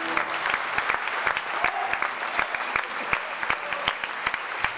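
Audience applauding, many separate claps heard distinctly, as the orchestra's last held chord cuts off at the very start.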